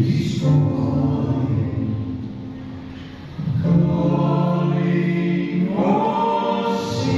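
Church choir singing in close vocal harmony, holding long sustained chords. A new phrase comes in about halfway, and near the end the voices slide up into another held chord.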